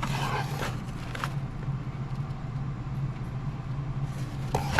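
Steady low hum with light rustling and a couple of faint clicks in the first second or so and again near the end, as the contents of an opened tackle box are handled.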